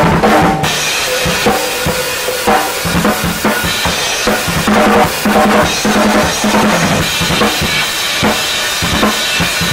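Acoustic drum kit played hard and continuously, with many rapid hits on bass drum and snare.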